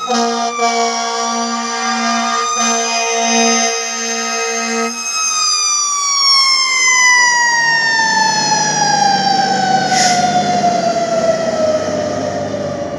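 Fire engine responding: its air horn blasts about twice a second over the siren. About five seconds in the horn stops and the siren winds down in one long falling tone as the truck passes, with the engine rumbling underneath.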